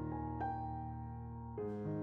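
Background piano music: a held chord, with a new note about half a second in and a change of chord near the end.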